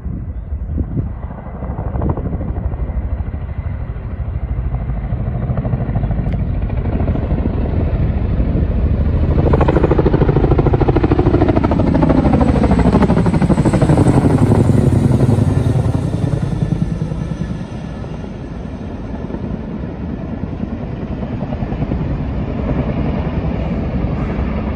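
CH-47 Chinook tandem-rotor helicopter flying past low overhead, its twin rotors beating in a rapid steady rhythm. It builds to its loudest about ten to sixteen seconds in, the pitch of the beat dropping as it passes overhead, then eases off as it moves away.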